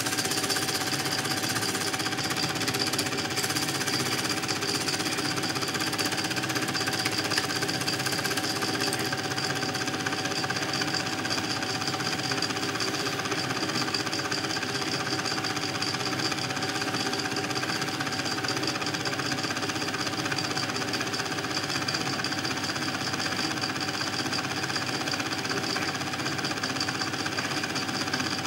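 Film projector running: an even, rapid mechanical clatter with a steady high tone.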